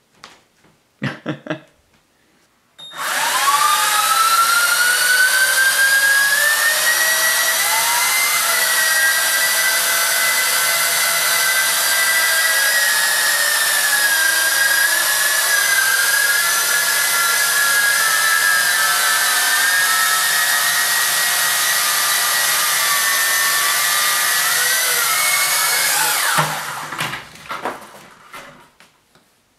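WLtoys V666 quadcopter's four motors and propellers running: a loud, steady whine of several pitches that drift up and down together as the throttle changes. It starts suddenly about three seconds in and cuts off near the end.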